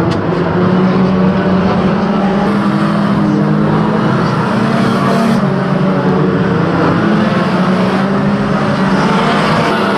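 Several banger racing cars' engines running hard together as the pack races, their pitches drifting up and down with throttle.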